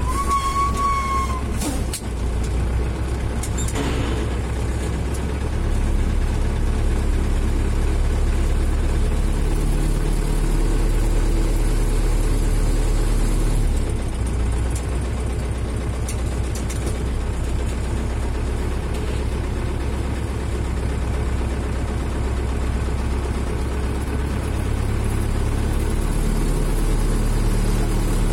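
Zetor 7011 tractor's four-cylinder diesel engine running under way, heard from inside the cab. The engine note drops a little about halfway through and picks up again near the end, and a short high squeal sounds in the first second.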